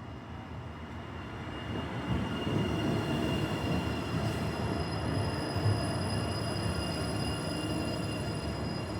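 Toronto transit rail train running past, its rumble growing louder over the first two seconds and then holding steady, with several steady high-pitched tones ringing above it.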